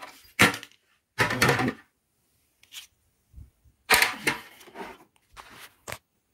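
Plastic housing parts of a Brother DCP-1510 laser printer being handled as its side cover is taken off: a string of sharp clicks and knocks, with a short scrape about a second in and a louder cluster of knocks about four seconds in.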